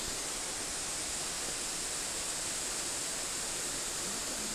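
Steady rushing of water from a creek and waterfall, an even hiss without breaks.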